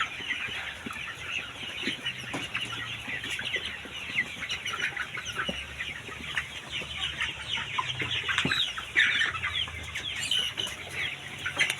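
A flock of chickens in a poultry house clucking and cheeping, many short calls overlapping without pause.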